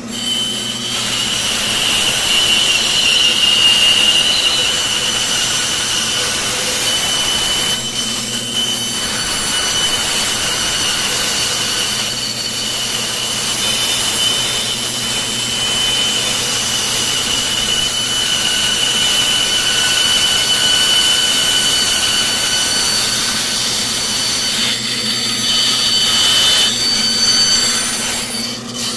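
Bandsaw cutting through a wooden block, a steady high whine from the blade in the wood over the machine's hum, easing off briefly a few times as the piece is repositioned.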